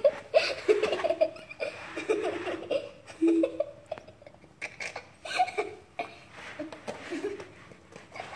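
People laughing and giggling in short bursts, fading out near the end.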